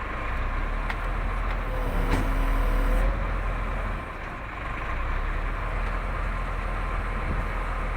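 A Hitachi Zaxis 350 excavator's diesel engine runs steadily with its throttle set to full, but the throttle (governor) motor is not taking it to full speed. A high hiss cuts off about three seconds in, and the engine note drops about a second later.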